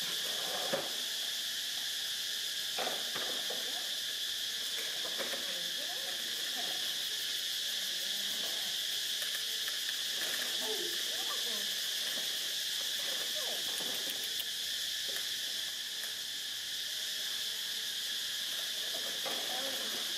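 Steady, high-pitched drone of an insect chorus.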